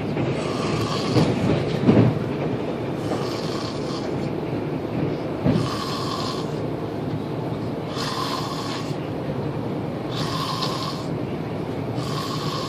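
A man snoring in a moving train carriage, one snore every two seconds or so, over the steady rumble of the express train.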